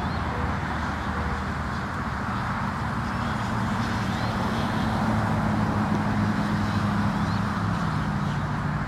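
Steady low hum of a running motor vehicle engine over a rushing background noise, growing a little louder about halfway through.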